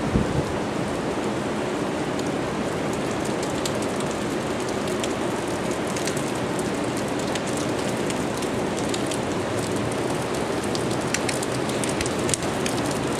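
Steady hurricane rain falling and spattering on hard surfaces: an even hiss dotted with many small drop ticks.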